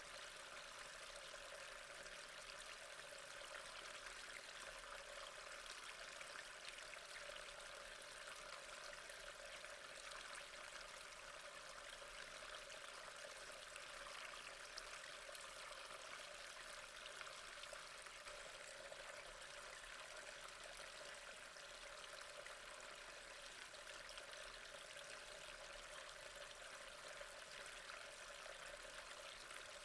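Faint, steady trickle of flowing water, an even splashing hiss with no breaks or changes.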